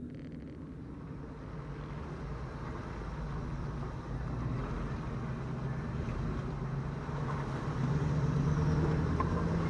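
Off-road 4x4's engine running at low revs while crawling through a shallow creek, over a steady wash of water and tyre noise. The engine note grows louder about eight seconds in.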